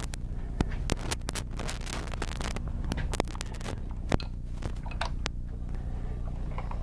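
Motorcycle engine running steadily, with frequent crackling and clicking on the microphone throughout.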